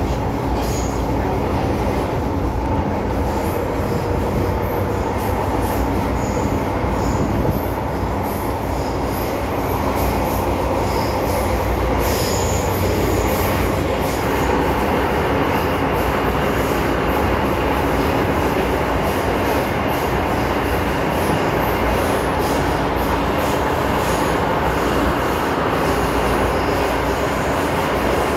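Interior sound of an MTR Kwun Tong Line M-Train, a Metro-Cammell electric multiple unit, running through a tunnel. A steady, loud rumble of wheels on rail fills the carriage, with short high-pitched wheel squeals now and then, and a faint high whine from about halfway through.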